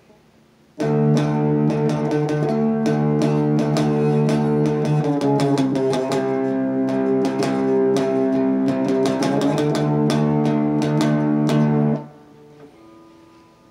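Electric guitar played through an MXR Prime Distortion pedal set to about 30% distortion, 30% tone and 40% output: rhythmically strummed distorted chords, moving to a different chord about halfway and back again, then cut off about two seconds before the end, leaving a faint ringing note.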